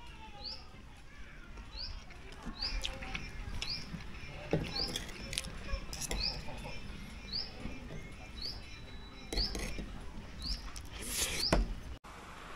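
A bird repeating a short, high, rising chirp about once a second, with scattered clicks and knocks around it and a louder knock about four and a half seconds in.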